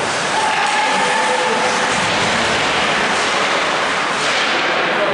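Ice hockey rink ambience: a loud, steady wash of noise from the skating and the crowd in the arena, with faint clicks and brief tones passing through.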